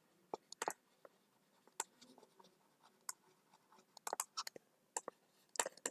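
Faint, irregular clicks and taps of a stylus writing on a tablet screen, a few in quick clusters.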